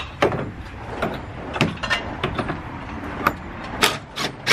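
Cordless drill driving screws into the wooden beams of a gazebo roof frame, with a series of sharp, irregular clicks and knocks, the loudest near the end.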